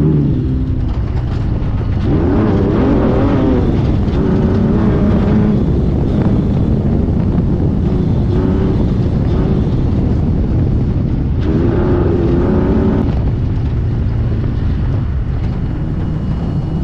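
Engine of a Sportsman Unlimited Class 1500 off-road race car at race pace, heard from inside the car, its revs rising and falling over a loud steady rumble.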